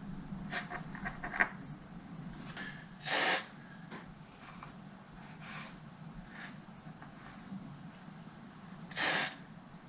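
Laptop parts being handled on a workbench: a few light clicks near the start, then two short hissing bursts, one about three seconds in and one near the end.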